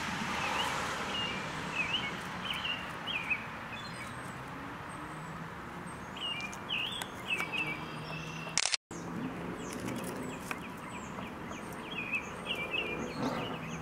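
Small birds chirping in short, repeated phrases over steady outdoor background noise, with a low steady hum underneath. A click and a brief dropout in the sound come a little past the middle.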